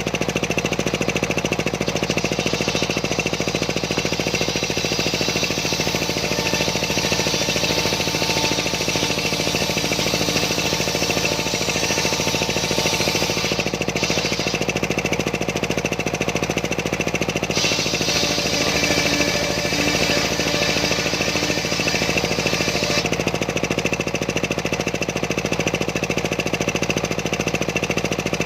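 Homemade engine-driven circular sawmill running steadily as its blade rips a large sengon log, the higher cutting hiss dropping out and returning a few times as the cut goes on.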